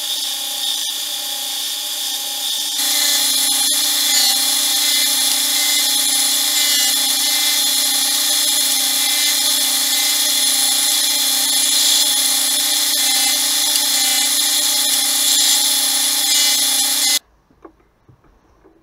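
Bench belt-and-disc sander running steadily while small oak domino tiles are pressed against the sanding disc to sand the milliput dots flush; it gets louder about three seconds in and stops abruptly near the end.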